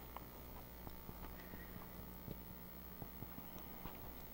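Faint, irregular little taps and clicks of hands working polymer clay around a crochet hook, over a steady low hum.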